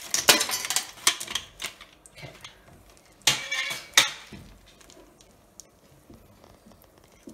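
A plastic ice cube tray being twisted so the cubes crack loose, giving a rapid run of sharp clicks and crackles, with a louder rattle and a sharp knock about three to four seconds in. This is ice going into the freshly curdled milk to stop the paneer from cooking further. After that come only faint ticks of a wooden spoon stirring the curds and whey in the steel pot.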